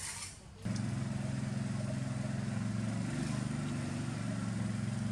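An engine running steadily at an even idle, its hum coming in suddenly under a second in.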